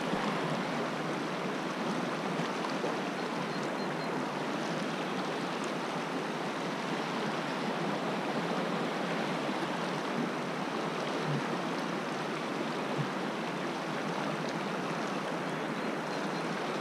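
Steady rush of a shallow river flowing over and around rocks in a riffle.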